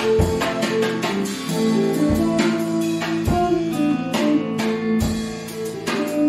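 Guitar-led band jam: held chords and notes ring over sharp percussive hits that come every half second to a second.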